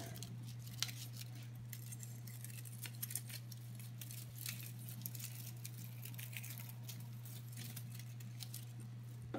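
Light crinkling and scattered small clicks of thin plastic bottle strip being handled and pulled taut as netting knots are tied with a plastic netting shuttle, over a steady low hum.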